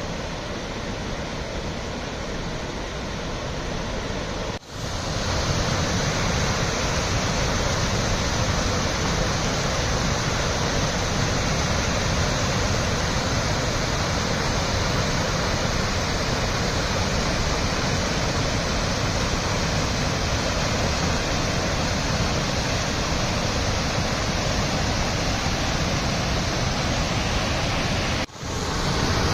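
Floodwater from a brim-full irrigation tank pouring over its surplus weir: a steady rush of falling water. It drops out briefly about five seconds in and comes back a little louder, and dips again shortly before the end.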